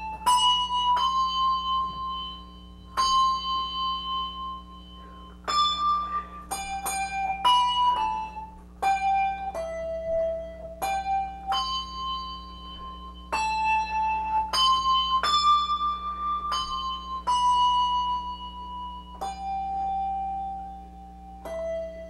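Brass English handbells rung solo, a slow tune played one note at a time. Each bell sounds with a sharp strike and rings on for a second or two before the next note. A faint, steady low hum runs underneath.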